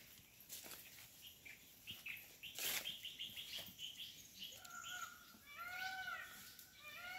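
Birds calling in forest: a quick run of high chirps, then a few arching calls that rise and fall in pitch, repeated near the end. A few soft rustles of undergrowth come in between.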